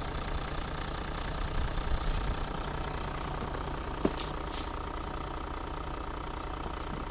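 Toyota Land Cruiser 100's 4.2-litre diesel engine idling steadily, with a single short knock about four seconds in.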